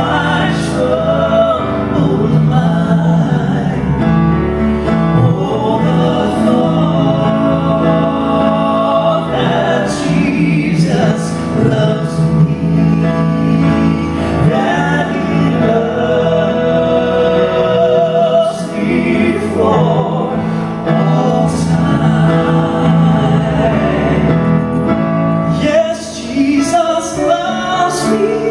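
Two male singers performing a gospel song into handheld microphones, held notes with vibrato over a steady musical accompaniment.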